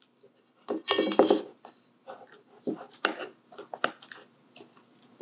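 A utensil scraping and clinking against a stainless steel mixing bowl as stiff cream cheese and pesto are mashed together. The loudest stretch comes about a second in, followed by a string of shorter scrapes.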